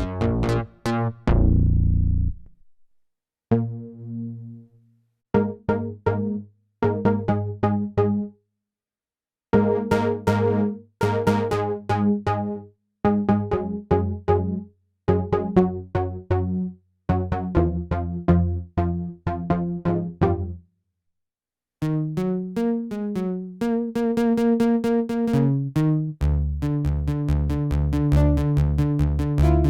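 Kurzweil K2vx synthesizer presets being auditioned. Several short phrases of chords are separated by brief pauses. In the last third, a fast repeating sequenced pattern with gliding notes comes in, over a pulsing low bass note.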